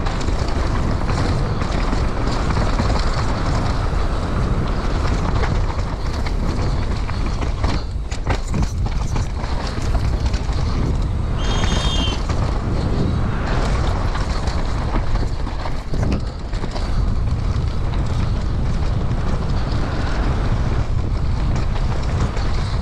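Wind rushing over the camera microphone while a downhill mountain bike runs fast over a dirt trail: tyres rolling on loose dirt, the bike rattling and knocking over bumps. A brief high whistling tone cuts through about twelve seconds in.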